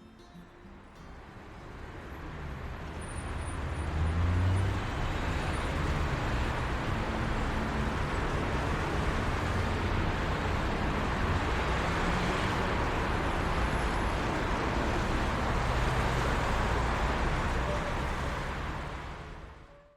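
Steady noise like road traffic, a low rumble under a wide hiss with no music, swelling in over the first few seconds and fading out just before the end.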